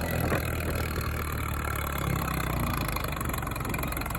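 1940s Caterpillar D4 crawler bulldozer's four-cylinder diesel engine running at a steady speed.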